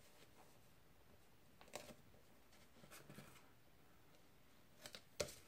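Near silence with faint rustles of cardstock and double-sided adhesive tape being laid down and pressed by hand, and a light click of paper scissors cutting the tape near the end.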